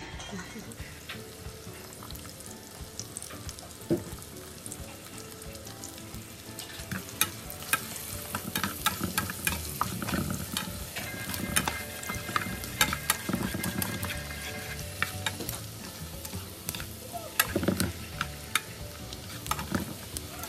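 Food sizzling in a hot pan while being stirred, with many clicks and scrapes of the utensil against the pan, busier from about seven seconds in.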